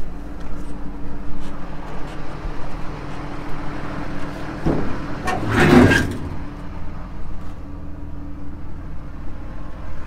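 Tractor engine idling steadily. About five seconds in there is a click, then a brief louder clatter.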